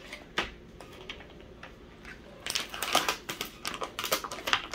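A single click, then from about halfway through a quick run of crackles and clicks as a plastic package of sliced salami is handled and opened.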